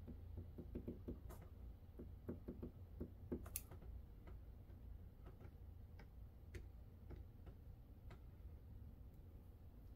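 Faint, irregular light clicks and taps, clustered in the first four seconds and sparser after, over a low steady hum.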